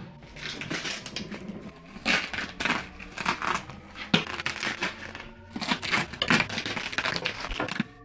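Plastic parcel wrapping and packing tape crinkling and crunching as a knife cuts and tears open a wrapped box, in quick irregular bursts with a few louder tears.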